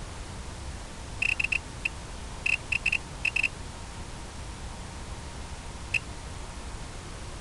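Short, high electronic beeps in quick clusters: four about a second in, one just after, a run of several between two and a half and three and a half seconds, and a single beep near the end, over a steady hiss and low rumble.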